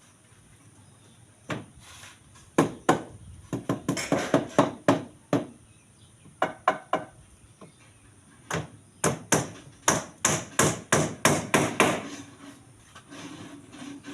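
Hammering: a single blow, then uneven runs of sharp strikes, the longest and fastest run near the end at about three blows a second.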